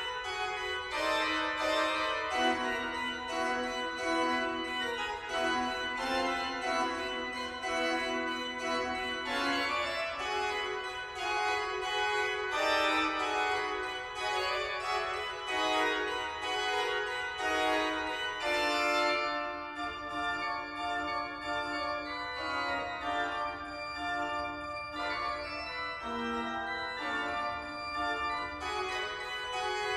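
Pipe organ played at a steady level: quick running notes over held, shifting chords, an improvisation.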